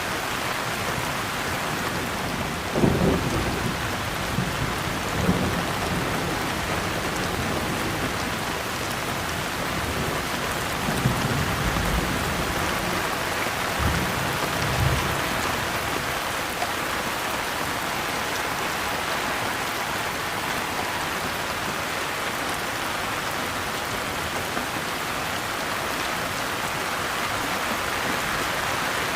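Steady rain hissing, with several short low rumbles of thunder in the first half.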